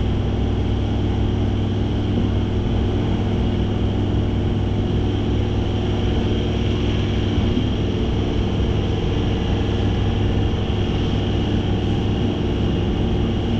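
Steady hum of a MEMU electric train, several constant low tones over an even hiss, with no change in pitch or level.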